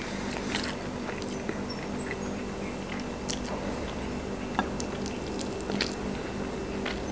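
A person chewing a mouthful of bone-in fried chicken, with scattered sharp clicks and crunches as it is bitten. A low steady hum runs underneath.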